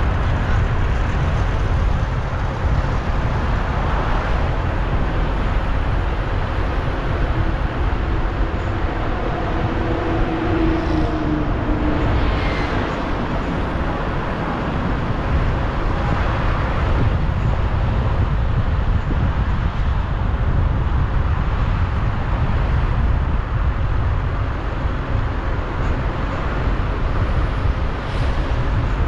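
Steady street traffic noise: a continuous rumble of passing vehicles, with a brief engine tone rising out of it about nine to eleven seconds in.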